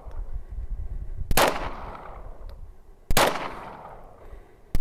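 Semi-automatic pistol fired three times at a slow, even pace, about a second and a half to two seconds apart. Each shot is a sharp report followed by a short echoing tail, and the third falls near the end.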